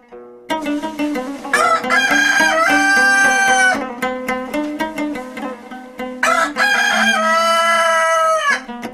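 A rooster crowing twice, each crow lasting about two seconds, loud over plucked-string music.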